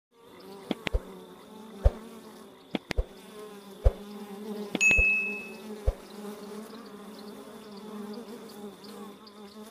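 Melipona stingless bees buzzing around flowers: a steady hum throughout. Several sharp clicks fall in the first six seconds, and a short high tone sounds about halfway through.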